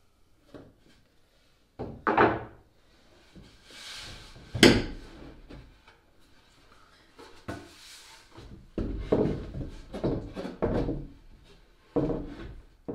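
Plywood boards being lifted, shifted and set down on a wooden seat frame: a series of wooden knocks and thuds, the sharpest a little under five seconds in and several close together near the end, with soft scraping between them.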